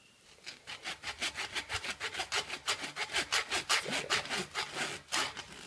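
A kitchen knife sawing back and forth through the tightly wound yarn around the small center ball of an official Major League Rawlings baseball. Quick, even rasping strokes, about six a second, stop abruptly a little past five seconds in.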